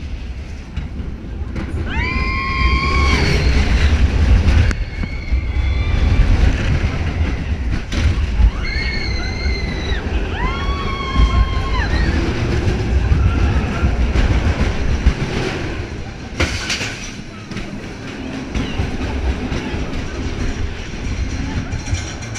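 A steel roller coaster train running on its track, heard from on board, with a steady deep rumble. Four long high-pitched screams from riders come in the first twelve seconds.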